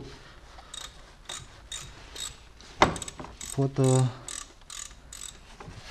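Ratchet wrench clicking in a steady run of short clicks, about two a second, as it backs out the Torx plug bolt over the crankshaft locking-pin hole on a Renault 1.5 dCi engine. One sharper, louder click comes near the middle.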